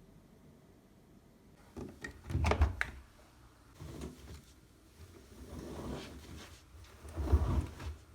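Handling noises: a few knocks and scrapes of things being moved about, the loudest about two and a half seconds in and again near the end.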